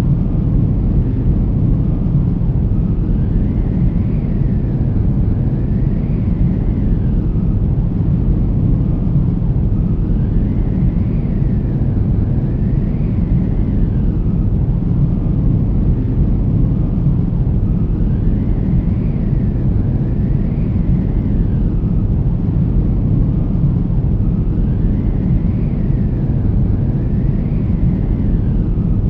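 A steady low rumbling drone. Over it, faint whistling tones rise and fall, coming in pairs about every seven or eight seconds.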